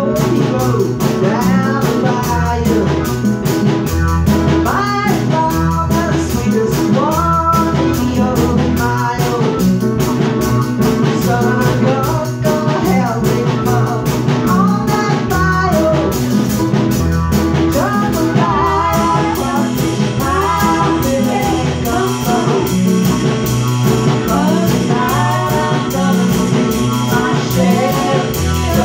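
Small live band playing: two electronic keyboards and an acoustic drum kit with a steady beat, and a sung vocal line over them.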